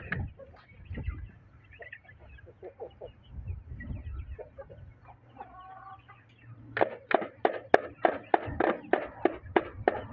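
Poultry calling: scattered soft clucks and chirps, then from about seven seconds in a loud, rapid run of sharp calls, about four a second.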